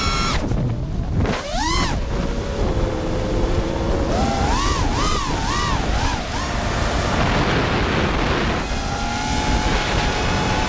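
FPV racing quadcopter's four DYS 2205 brushless motors and propellers whining, the pitch swinging with throttle: a quick punch up and down about a second and a half in, four short throttle blips between about four and six seconds, then a steadier, higher whine near the end. Heavy wind rush on the onboard camera's microphone runs underneath.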